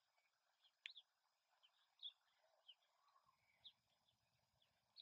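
Faint songbird chirps: short, high calls scattered about once a second.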